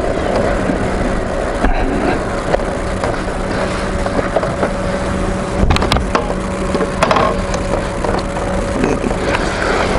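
BMW R1200GS Adventure's boxer-twin engine running at a steady speed, a constant hum under road noise.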